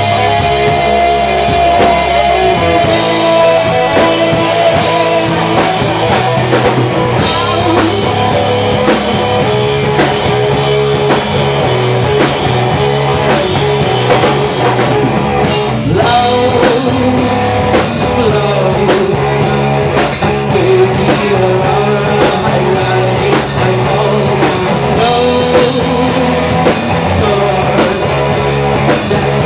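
Live rock band playing loudly, with electric guitar, bass and drum kit, and a woman singing into a microphone.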